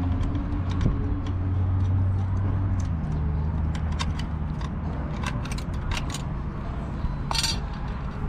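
Hand tools clicking and clinking against the metal of a Harley-Davidson Sportster while the battery cover and clamp are worked loose, with a short metallic jangle near the end. A steady low engine hum runs underneath.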